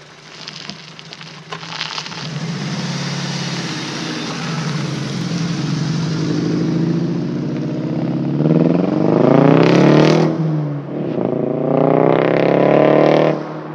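VW GTI's turbocharged 2.0-litre four-cylinder engine, through a turbo-back aftermarket exhaust, idling and then revved twice, each rev climbing and falling back to idle near the end. It is misfiring on cylinders 2 and 4 from failing ignition coils, which alters the exhaust note.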